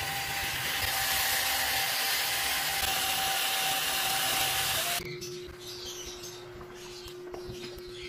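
Battery-powered mini handheld egg whisk running in a raw egg, a steady motor whine with the whisk churning. It cuts off abruptly about five seconds in, and a quieter steady hum follows.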